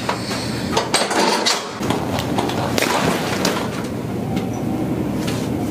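Several sharp cracks and knocks, a cluster about a second in and more near three seconds in, from a chiropractic spinal adjustment: joints of the back popping under the manipulation.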